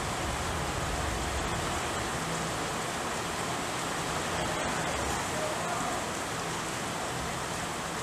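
Steady rain falling, an even hiss without let-up.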